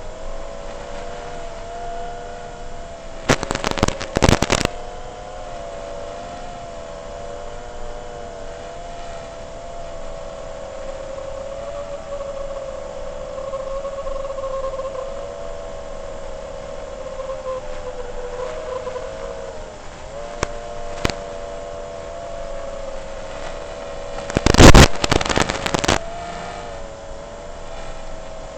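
FPV quadcopter's motors whining steadily, the pitch wavering up and down with the throttle. Two loud, rough bursts of noise cut in, about three seconds in and again near the end.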